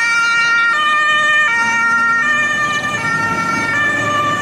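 Two-tone siren of a German MAN turntable-ladder fire engine on an emergency run, alternating evenly between a high and a low note about every three-quarters of a second, over the low rumble of the passing truck.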